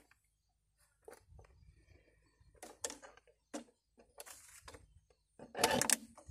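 Handling sounds of a plastic PET bottle being tied to a wooden stake with wire: scattered clicks and rustles, with a louder rustle of about half a second near the end.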